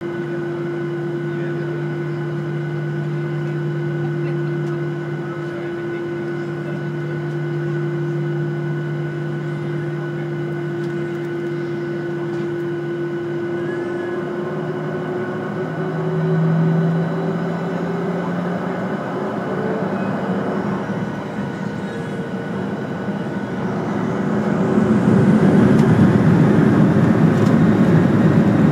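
Boeing 737's jet engines heard from inside the cabin while taxiing: a steady hum with a thin whine on top. Near the end the engine noise grows louder and rushier.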